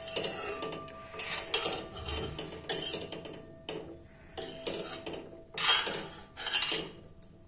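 Metal spoon scraping and clinking against a metal kadai as vermicelli cooking in milk is stirred, in irregular strokes of uneven loudness.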